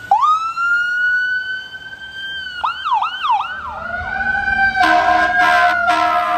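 Fire truck siren winding up into a wail, switching to a fast yelp about three seconds in, then back to a wail. About five seconds in the truck's air horn blasts twice with a short gap, over the siren as it slowly drops in pitch.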